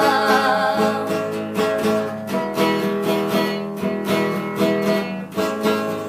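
Acoustic guitar strummed in a steady rhythm, an instrumental interlude between sung verses of a sertanejo song.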